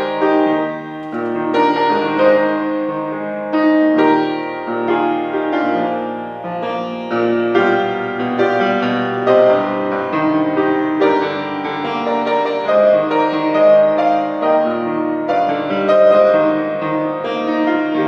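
Piano music: held chords under a melody line that moves every half second or so, with no singing.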